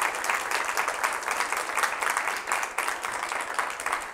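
Audience applauding: many people clapping together, easing off near the end.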